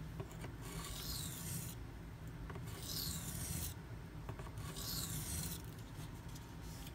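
Spyderco Paramilitary 2's 52100 steel blade stroked across a Shapton Pro 320-grit whetstone: three gritty strokes, each about a second long, made as alternating passes on each side to clean up a burr.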